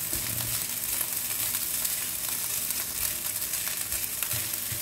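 Cold cooked rice with fried egg sizzling steadily in a hot nonstick frying pan, stirred and pressed with a wooden spoon to break up the clumps, with a few light scrapes and knocks of the spoon on the pan.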